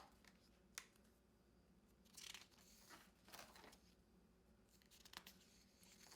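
Faint rustling and brief swishes of paper pages being turned in a disc-bound planner, several separate flips with a small click near the start.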